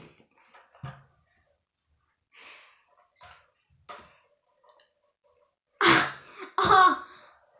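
A boy making two loud noises of disgust with his mouth near the end, the second one voiced and wavering, after a few faint small sounds.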